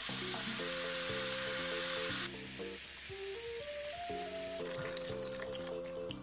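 Minced beef and tomato sizzling in a hot frying pan as tinned tomatoes are poured in. The loud hiss drops off abruptly about two seconds in, then goes on more quietly as stock is poured over. Background video-game music plays throughout.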